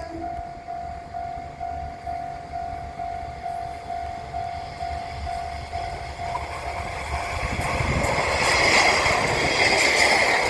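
Japanese level-crossing warning bell ringing steadily at about two strokes a second. From about eight seconds in, a JR train passing over the crossing swells in and drowns out the bell.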